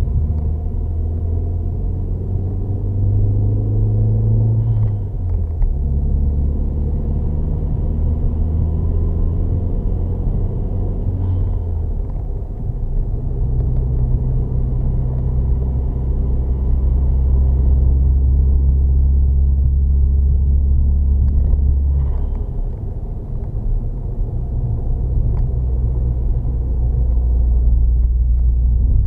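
Skoda Octavia 1.8 20-valve turbo four-cylinder engine running under load. Its note changes three times, each with a brief turbo flutter from the compressor as the throttle is lifted.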